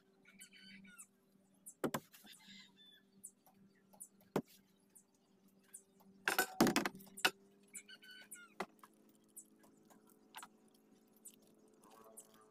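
Handling noise from a small plastic cup: scattered clicks and light knocks, with a louder clattering rattle about six and a half seconds in, over a faint steady hum.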